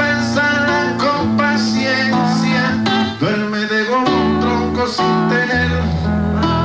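Acoustic guitar playing a Cuban trova accompaniment, strummed and plucked chords in a steady rhythm with the bass notes changing every second or so.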